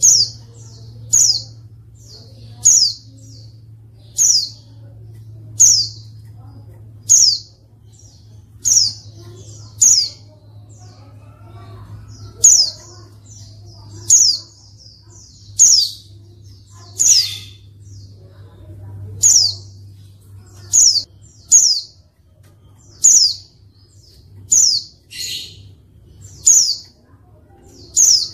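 Female white-eye (pleci) calling: a string of short, high, sharply falling chirps, one about every second and a half. A low steady hum runs underneath.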